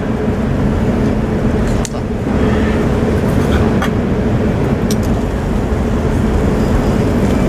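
Steady low rumble with a constant low hum, broken by a few light metallic clicks of tongs.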